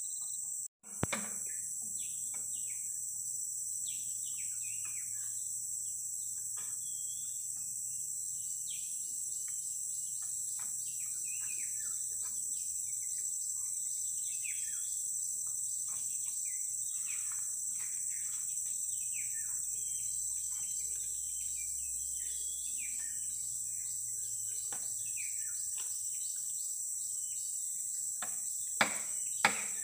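A steady high-pitched insect chorus, with many short falling bird chirps over it through most of the stretch. Near the end come a few sharp knocks.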